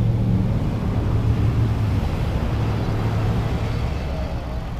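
Street traffic noise with a steady low motor-vehicle engine hum.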